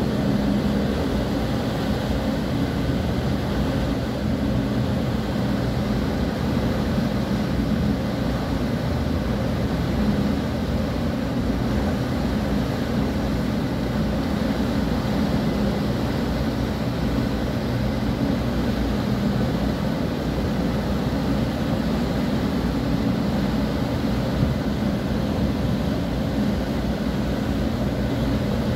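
Steady low drone of a ship's engines and propeller, with the rushing noise of the wake churning behind the stern.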